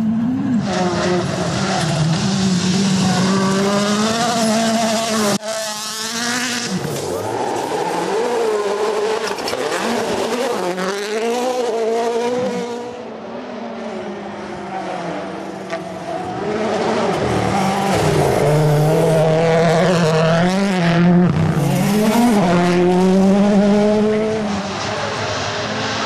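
Rally cars' turbocharged four-cylinder engines at full throttle on gravel, the engine note climbing and dropping back with each gear change over a hiss of tyres and thrown gravel. It is heard first from inside a car, then, after a sudden cut about five seconds in, from the roadside as cars come closer and pass.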